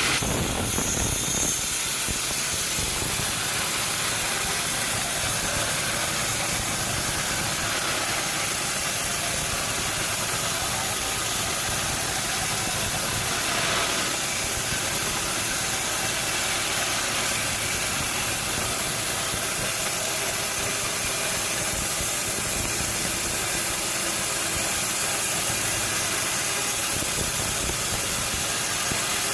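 Sawmill machinery running steadily, a constant hissing mechanical noise with no change in level.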